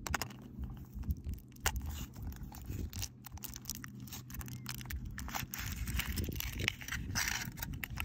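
Foil wrapper of a Kinder Surprise chocolate egg crinkling and tearing as it is peeled off, with sharp snaps of the thin chocolate shell breaking open. The crackling is thickest near the end.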